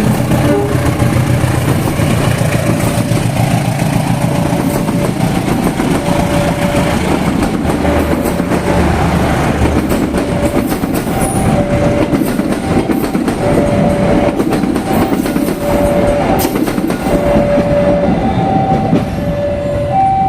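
Passenger train hauled by a CC203 diesel locomotive passing, its wheels clattering over rail joints and turnouts. Through the second half a two-note tone repeats, alternating about once a second.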